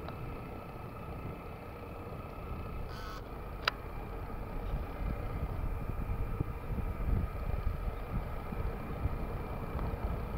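Boeing 747-8F's four GEnx turbofan engines in flight: a steady low rumble with a faint even whine above it. A single sharp click comes about a third of the way in.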